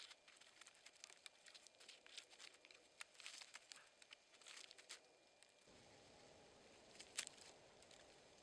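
Faint rustling with scattered light crackles and clicks of dry leaves and twigs. About two-thirds through it gives way abruptly to a faint steady hiss with one sharper click.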